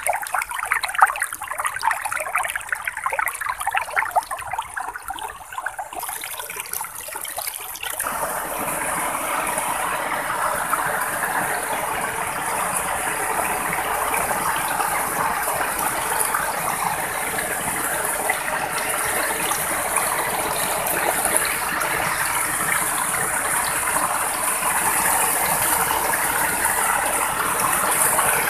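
Shallow water flowing over grass in a narrow channel, trickling and gurgling unevenly, then, about eight seconds in, a steady, louder rush of water pouring down a small cascade.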